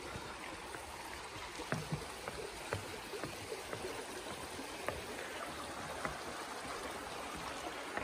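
Shallow rocky creek running under a footbridge, a steady rushing of water, with a few scattered soft knocks of footsteps on the bridge's wooden boards.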